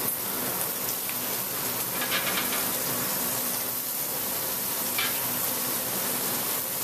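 Scallops searing in hot clarified butter in a stainless steel sauté pan: a steady sizzle as they are laid in one by one, with a couple of brief clicks.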